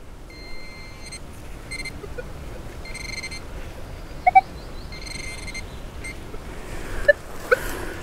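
Metal detector beeping on and off in short steady tones as the coil is swept over a buried metal target. A few short chirps are heard, the loudest about four seconds in.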